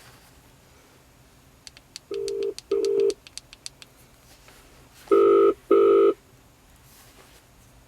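Telephone ringing tone in a double-ring cadence, played through the car's audio system over the Bluetooth hands-free interface: a quiet pair of short buzzing rings about two seconds in, then a louder pair about three seconds later. A run of faint quick ticks accompanies the first pair.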